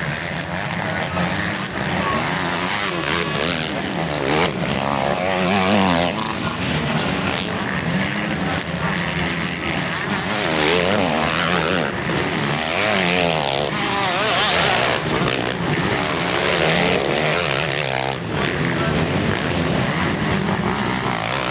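Several motocross bikes racing past, their engines revving up and down through corners and gear changes, the pitch rising and falling over the steady drone of more bikes on the track.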